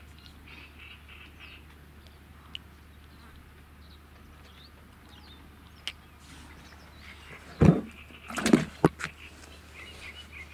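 Small birds chirping and twittering steadily in the background. A few loud knocks and rustles come close together about three quarters of the way through.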